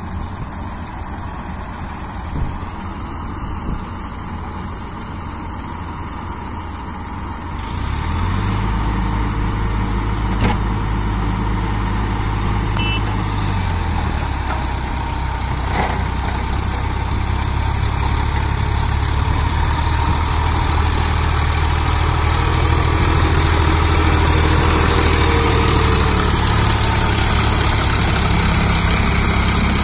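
Sonalika tractor's diesel engine running under load in churned mud, with a backhoe loader's engine running alongside. The engine sound grows louder and deeper about eight seconds in.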